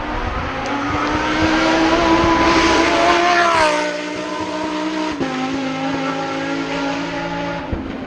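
Hillclimb race car engine at high revs, growing loud as it approaches and passes. Its pitch glides down at the pass, about three and a half seconds in, then steps down sharply again about five seconds in as it carries on up the road.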